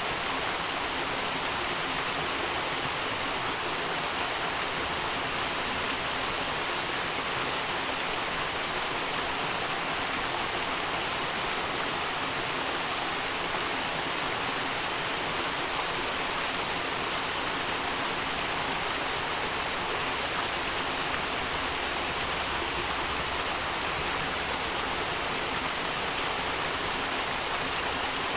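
A small wild mountain stream rushing steadily, an unbroken sound of flowing and splashing water.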